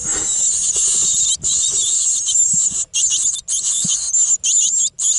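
A brood of great tit nestlings begging for food: a loud, dense chorus of high, thin calls, broken by brief pauses every second or so.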